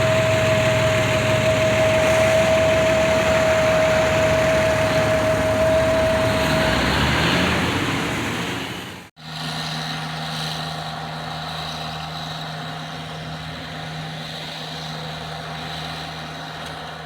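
A motor vehicle's engine running steadily under a loud, even rushing noise. About nine seconds in the sound cuts off abruptly, then resumes quieter with a steady low engine hum.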